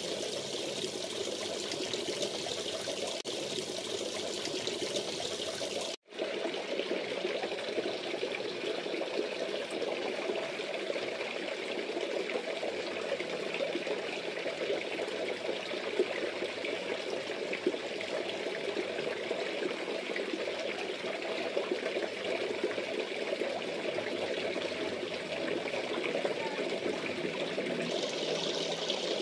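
Water splashing and trickling steadily into a fish pond, a continuous gurgle. It cuts out for an instant about six seconds in.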